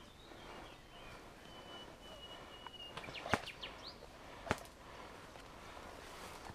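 Rustling and footsteps of a person pushing through dense brush, over a thin whistled bird call that holds one note for about a second. Two sharp snaps come about three seconds in and again a second later.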